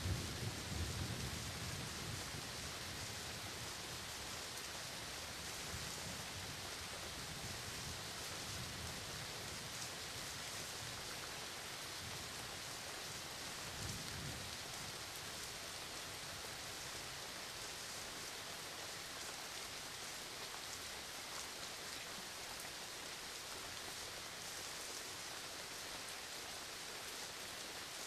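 Steady rain falling, an even hiss of drops. A low thunder rumble dies away in the first couple of seconds, and a brief faint low rumble returns about halfway through.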